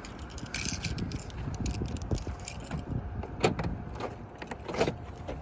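Keys jangling, with a few sharp clicks and knocks.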